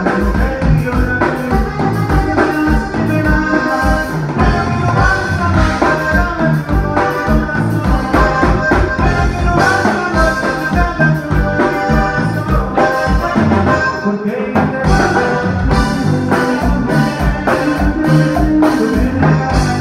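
Live conjunto band playing: a man sings over button accordion, guitar and drum kit, with a steady dance beat.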